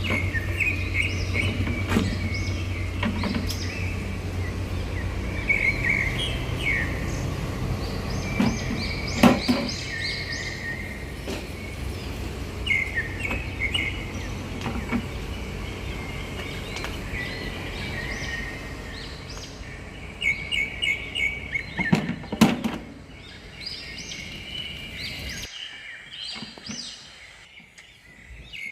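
Small birds chirping repeatedly over a steady low hum that cuts off near the end, with a few sharp clicks now and then.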